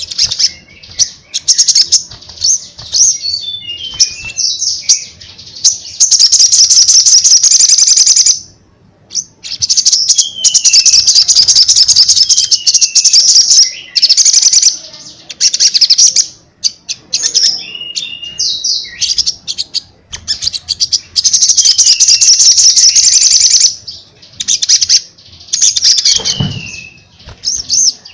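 Caged olive-backed sunbird (sogon) singing loudly in long, rapid, high-pitched trilling runs, broken by short falling whistles and quick chips.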